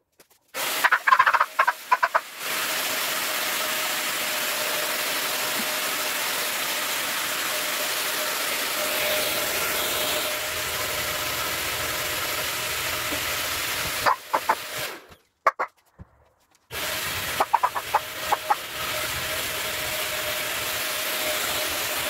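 Corded DEXP 1000 W handheld vacuum cleaner running, its motor switched on just after the start, off for about a second and a half around the middle, then on again. Short bursts of rattling clicks come just after it starts, around when it stops, and after it restarts.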